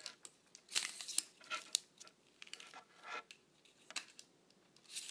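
Retractable poles being pushed together by hand: scattered sharp clicks and short scraping, sliding noises, with some rustling.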